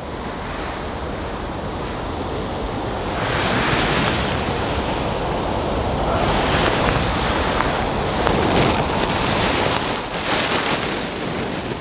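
Wind gusting on the microphone and through the bankside reeds and trees: a constant low rumble, with stronger gusts swelling about three seconds in and several times more.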